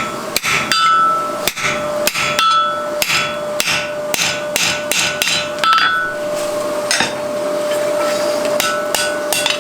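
Blacksmith's hammer striking hot mild steel on an anvil, a run of blows at about two a second with the anvil ringing after each, as the forged collar ring is cut from the bar stock.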